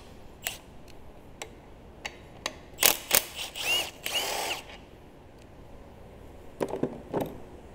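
Cordless power tool spinning the crankshaft bolt out of the front of the engine: a couple of short runs with a motor whine that rises and falls, about three seconds in. A few metal clinks near the end.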